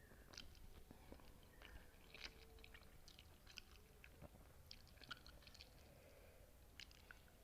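Close-miked chewing of food: faint, scattered wet mouth clicks and smacks.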